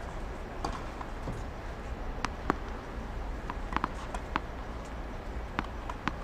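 Tennis ball bouncing and sneakers tapping on a hard court: several sharp, irregular taps, the loudest about two and a half seconds in, over a steady low hum.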